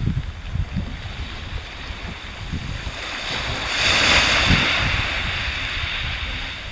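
Wind buffeting the microphone in uneven gusts, with the hiss of small waves washing in. The wash swells to its loudest about four seconds in, then fades.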